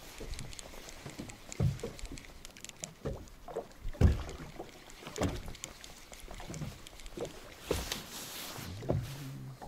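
Water slapping and lapping irregularly, with a handful of sharper slaps, the strongest about four seconds in.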